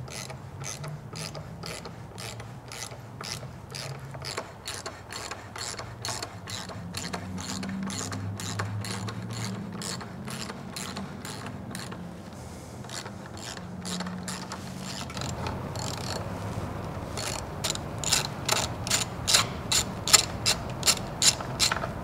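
Hand ratchet clicking steadily, several clicks a second, as it turns a thread tap in a Snap-on tap socket to cut threads in a stripped bolt hole in the aluminum front case of a CAT C15 engine. The clicks get louder and more spaced near the end.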